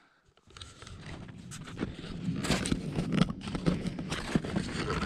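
Footsteps crunching through deep snow, irregular crunches over a low rumble, starting about half a second in and growing louder.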